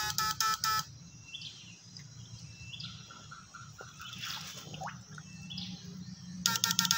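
Background music with a steady beat cuts off about a second in. Then comes quiet outdoor ambience: a steady low hum and a few short bird chirps. The music comes back near the end.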